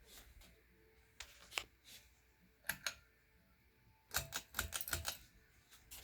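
A series of sharp clicks and light rattles: a few single ones in the first three seconds, then a fast cluster of them about four seconds in.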